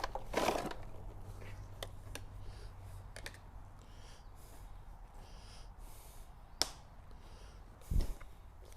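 Quiet handling noises: scattered light clicks and soft rustles, a sharp tick past the middle and a dull thump near the end.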